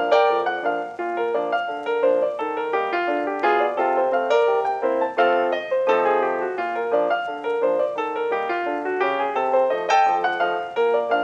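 Solo piano music playing a busy stream of quick notes, several struck each second.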